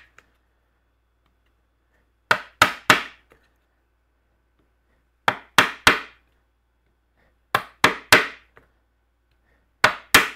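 A newly turned wooden mallet striking the wooden handle of a chisel, driving it into a board: quick sets of three sharp knocks about a third of a second apart, repeated every two to three seconds.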